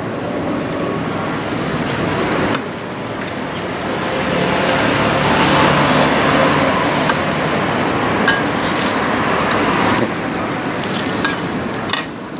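Steady street traffic noise that swells in the middle as a motor vehicle goes by, with a few light clinks of a metal spatula on the griddle.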